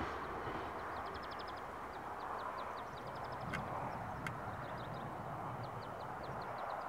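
Outdoor ambience by the track: a steady rushing background with repeated short runs of rapid, high ticking chirps, about ten a second, and two brief sharp clicks near the middle.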